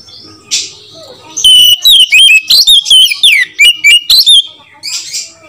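Oriental magpie-robin singing a loud, varied whistled song of quick rising and falling notes, from about a second and a half in until past four seconds. Short scratchy notes come before and after the phrase.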